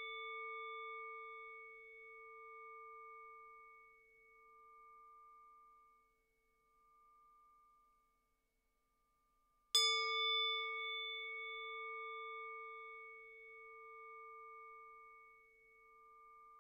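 A singing bowl rings out, fading over the first few seconds from a strike just before. It is struck again about ten seconds in and rings with a slow pulsing warble as it dies away.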